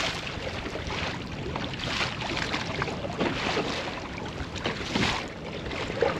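Wind on the microphone and choppy water slapping against a kayak hull, with irregular small splashes over a steady rush of noise.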